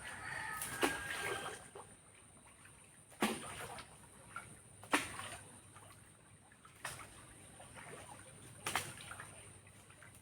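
Water splashing and sloshing in separate bursts every second or two.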